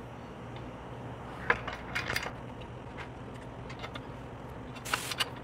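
Small metal clinks and clicks of a washer and socket head cap screw being handled and started by hand into a steel mounting bracket, a few sharp ones about a second and a half in, around two seconds in and near the end, over a steady low hum.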